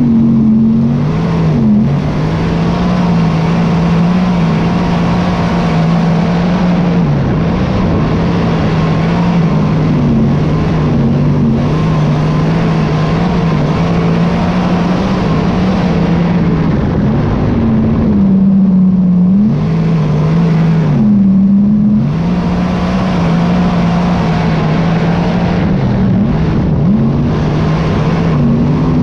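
Chevrolet V8 of a dirt modified race car running hard, heard from onboard, its pitch dipping and climbing back several times as the throttle is lifted and reapplied through the turns, with the longest dip about two-thirds of the way through.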